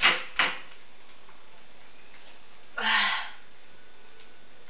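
Two sharp sniffs through the nose, a mimed snort, then about three seconds in a longer breathy exhale.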